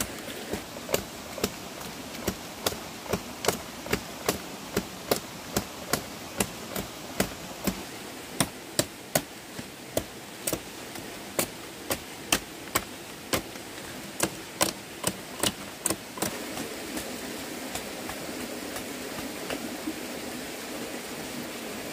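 Repeated sharp tool strikes, about two a second, that stop about sixteen seconds in, over a steady rushing background noise.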